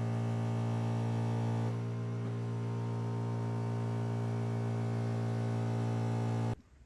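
Steady low electrical mains hum, a buzz with many overtones, that switches on and cuts off abruptly, dipping slightly about two seconds in.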